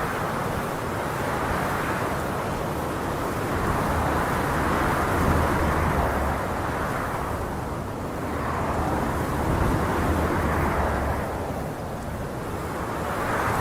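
Steady rushing noise with no tones or voices, swelling and easing slowly every few seconds.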